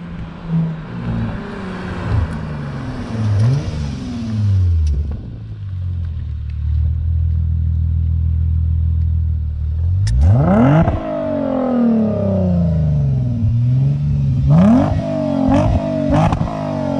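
Lexus RC350's V6 through an Invidia mid-pipe and Greddy axle-back exhaust: the car drives past, then holds a steady low note. From about ten seconds in it is revved in several quick throttle blips, the pitch shooting up and falling back, with sharp cracks among them. The exhaust note is deep and snappy.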